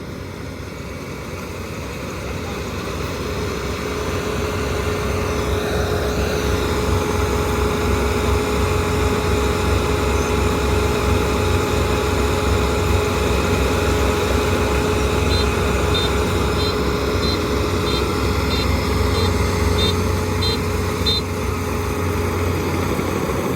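Kubota ER 470 combine harvester running steadily with a constant hum, getting louder over the first few seconds and then holding level. Partway through there is a quick run of about ten short, high pips.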